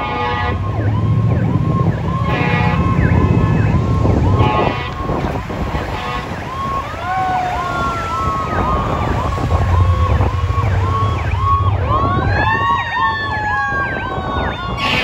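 A fire engine's siren on a rapid yelp, repeating about twice a second. A second, mechanical-style siren winds up twice and slowly drops in pitch. A deep horn sounds twice, near the start and in the middle.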